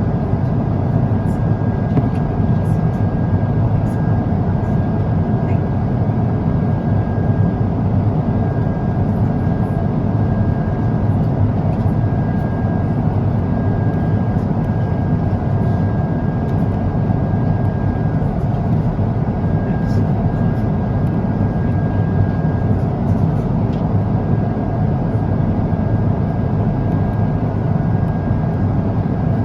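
Steady cabin noise inside an Airbus A350-900, a constant rush of engine and airflow from its Rolls-Royce Trent XWB engines, with a faint steady high whine over it.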